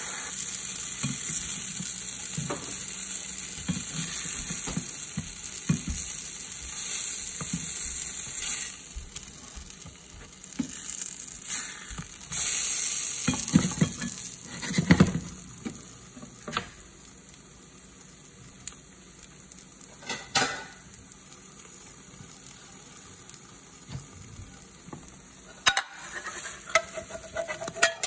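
Pancakes sizzling in a nonstick frying pan, the sizzle steady at first and dying down after about nine seconds. Scattered knocks and scrapes of a spatula against the pan follow as the pancakes are turned and lifted out, several close together around the middle and a few more near the end.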